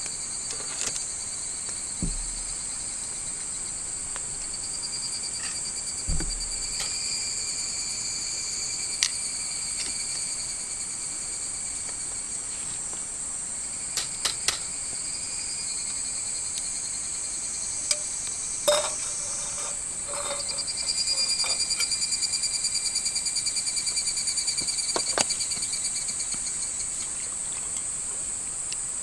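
Insects trilling steadily in several high pitches, with a louder, fast-pulsing trill from about 21 to 26 seconds in. Occasional short clicks and knocks sound over it.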